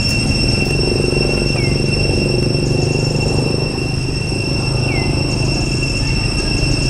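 Outdoor woodland ambience: a steady, high-pitched insect drone over a steady low rumble, with a short falling chirp repeating about every three seconds.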